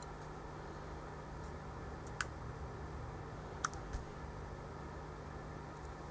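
A few sharp, short clicks of the push-buttons on a Mastech MS7221 volt/mA calibrator being pressed, about two seconds in and twice more around three and a half to four seconds in, over a steady low hum.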